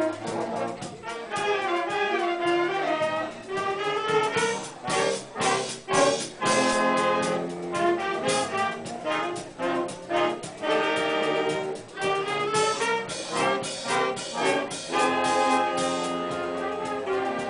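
Student jazz band horn section of trumpets, trombones and saxophones playing together: long chords at first, short punchy chords through the middle, then a long held chord near the end.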